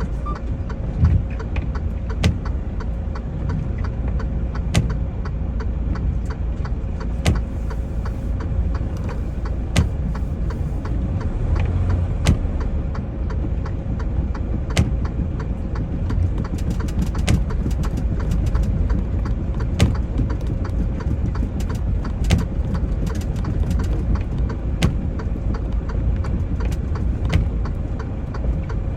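Semi-truck diesel engine running steadily, heard from inside the cab as a constant low rumble. A thin steady tone sits over it, and sharp clicks come at irregular intervals throughout.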